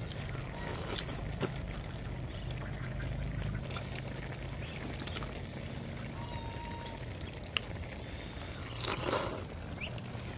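Eating at a table: a spoon clinking lightly against a plate a few times and a short noisy burst near the end, over a steady low background hum.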